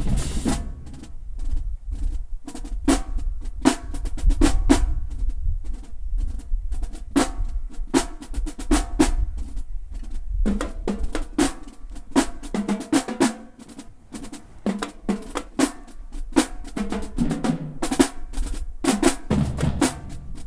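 Marching band drumline playing a marching-in cadence: snare drums with rolls and sharp strikes over bass drums, in a fast, driving rhythm.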